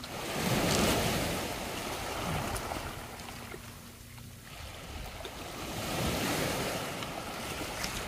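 Small sea waves breaking and washing up onto a pebble beach, swelling twice: once soon after the start and again around six seconds in.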